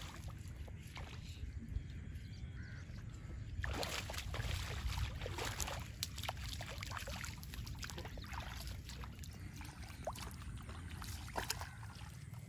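Snakehead fish thrashing and splashing at the surface of shallow, weedy water: a run of irregular splashes starting about four seconds in.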